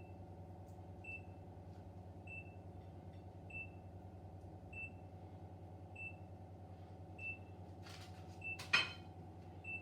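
A kitchen appliance's electronic alert beeps once about every 1.2 seconds, a single high short tone each time, over a steady low appliance hum. Near the end comes a brief clink and clatter of kitchenware.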